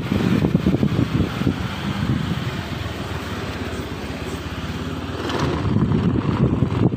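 Motorcycle taxi riding along a street: a small scooter's engine running under steady wind buffeting on the microphone, the low rumble and flutter swelling a little near the end.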